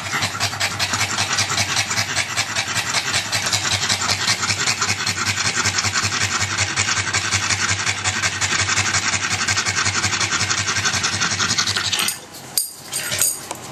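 Pug panting hard and fast in a steady, raspy rhythm as it cools down from overheating. The panting stops about twelve seconds in, followed by a few short scuffs as the dog gets up and shifts on the tile floor.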